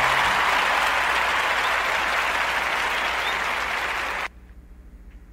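Applause, an even wash of clapping that cuts off suddenly about four seconds in, leaving a faint low hum.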